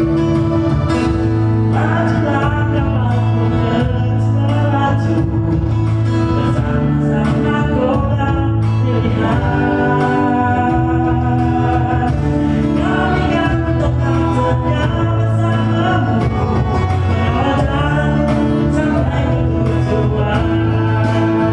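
A nasyid-style song: sung vocals over instrumental backing with steady bass notes and a regular beat.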